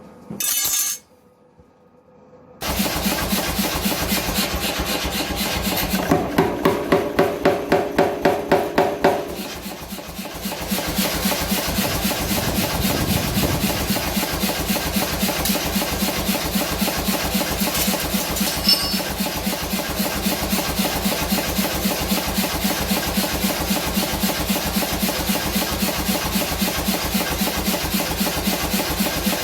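Power hammer pounding hot H13 tool steel in a rapid, steady run of blows. It starts a couple of seconds in, with louder, ringing strikes for a few seconds around six seconds in.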